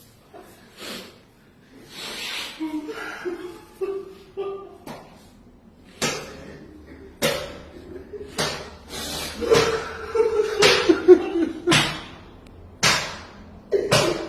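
Sharp slaps about once a second, getting louder, among voices.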